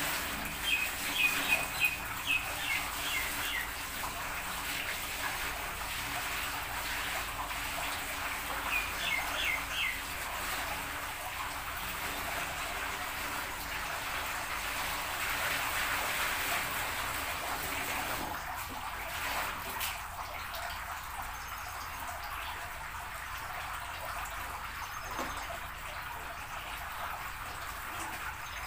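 Water poured from a plastic bucket into an air cooler's metal water tank: a steady splashing pour that stops about 18 seconds in, leaving a softer trickle. Birds chirp briefly twice, near the start and about 9 seconds in.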